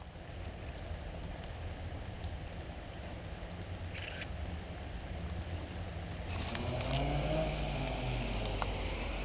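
Steady low outdoor rumble, with a motor vehicle passing by about seven seconds in, its engine pitch rising and then falling.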